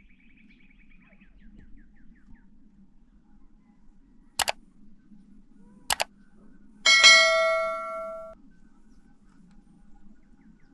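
Two sharp clicks, then a single clang of struck metal that rings with several clear tones and dies away over about a second and a half.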